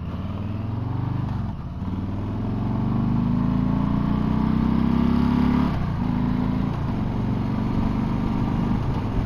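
2020 Harley-Davidson Street Bob's Milwaukee-Eight 107 V-twin, breathing through a Miller aftermarket exhaust, accelerating hard from first gear. The engine note climbs, dips at a shift about a second and a half in, and climbs again louder to another shift a little after halfway. It then runs steadier in a higher gear, with wind noise over the helmet microphone. This is the 48 PS restricted version, which the rider finds power-limited.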